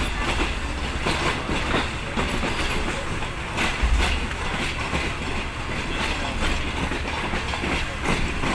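Passenger train running, heard from on board: a steady rumble with irregular clacks of the wheels over rail joints.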